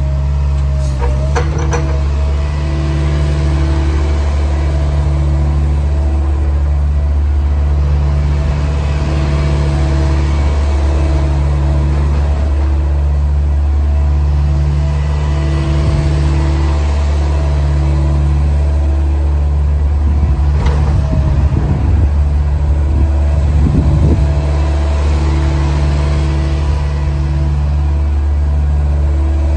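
Diesel engine of a CAT 306CR mini excavator running steadily, with a deeper tone that cuts in and out every second or two as the load on it changes, and some rattling and knocking about two-thirds of the way through.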